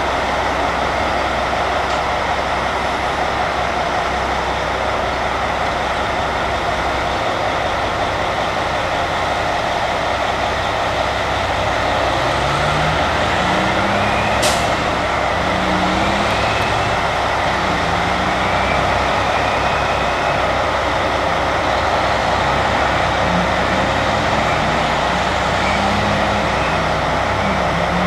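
Caterpillar 773D rigid dump trucks' diesel engines running, a heavy, steady din. From about halfway through, engine pitch rises and falls as a truck pulls away past. A brief sharp hiss sounds about halfway through.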